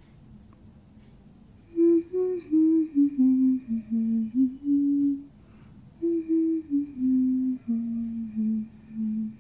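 A woman humming a tune: two short phrases of sustained notes, each stepping down in pitch, with a pause of about a second between them.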